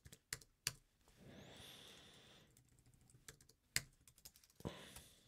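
A handful of separate computer keyboard keystrokes, the sharpest one near the end, with a faint soft hiss between them about a second in.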